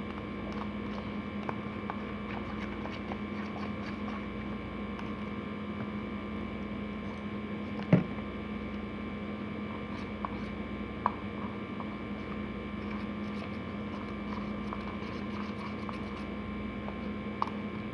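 Steady electrical hum, with faint scattered clicks and taps and one sharper click about eight seconds in.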